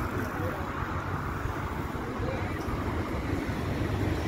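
Street ambience: steady road-traffic noise with a low rumble.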